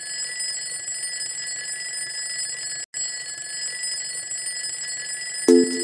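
Electronic loading-screen sound effect: a steady buzzing of high held tones over a light hiss, cut off for an instant about three seconds in. Near the end, a quick run of electronic beeping notes starts.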